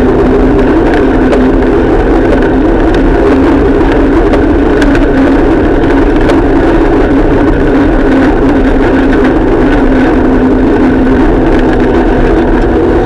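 Steady, loud mechanical drone with a constant low hum from the vehicle carrying the camera as it travels along, with scattered small clicks and rattles.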